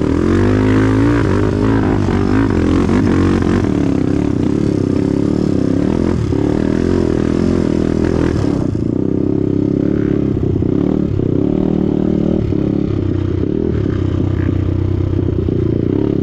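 Off-road trail motorcycle engine running hard, its pitch rising and falling with the throttle over the first half, then holding steadier after about nine seconds.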